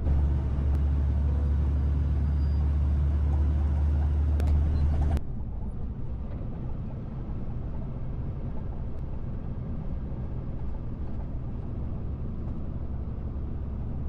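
Truck running on the highway: a steady low engine drone with road noise, which drops abruptly to a quieter steady rumble about five seconds in.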